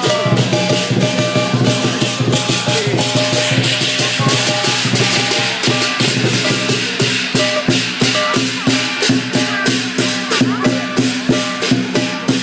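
Lion dance percussion: a drum beaten in a fast, steady rhythm with hand cymbals crashing along on the beat, loud and unbroken.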